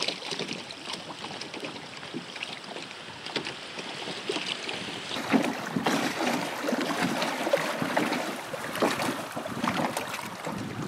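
Small wind-driven waves lapping and splashing against a rocky lakeshore, with many quick splashes. The lapping gets louder and busier about halfway through.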